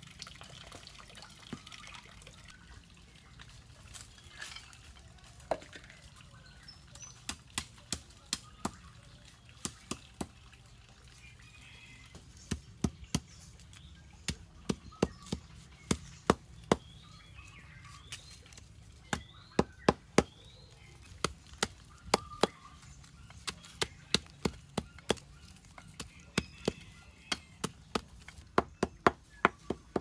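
Hand-held stone striking reddish rock on a flat stone anvil, crushing it to grit: sharp stone-on-stone clacks in quick runs of several strikes with short pauses, starting about four seconds in.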